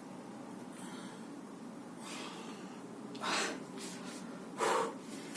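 A person breathing: three short, forceful breaths about a second and a half apart, the last two louder than the first.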